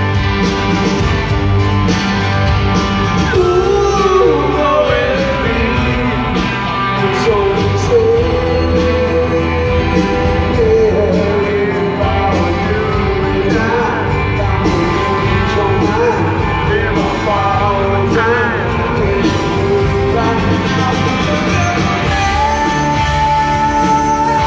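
Live rock music heard from the audience in an arena: a male singer singing over electric guitar and the band, ending on a long held high note near the end.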